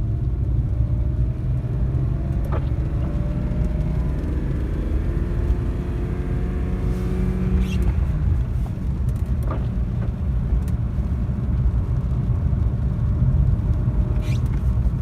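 BMW E36 M3 straight-six engine and road noise while driving, the engine note rising slowly for about eight seconds and then dropping away, as on an upshift or lifting off the throttle. A few faint clicks are heard over the steady rumble.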